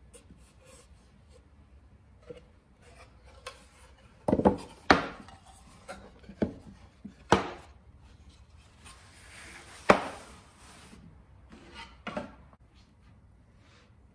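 Plywood panels being handled and set down on a wooden workbench: a series of sharp wooden knocks and clatters, the loudest from about four seconds in, with some scraping as the boards slide over the bench.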